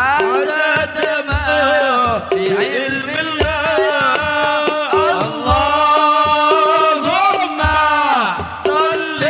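Sholawat devotional music: a wavering, ornamented sung melody over a steady held drone and deep drum beats about once a second.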